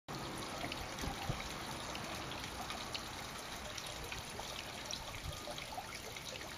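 Steady hiss-like outdoor background noise with faint scattered ticks, starting and cutting off abruptly.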